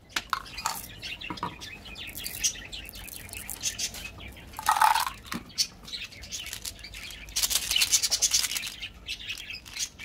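Hard plastic candy containers being handled and opened by hand: irregular clicks, scrapes and squeaks of plastic caps and tubes, with candy-coated chocolate buttons rattling inside. The handling gets busier near the end.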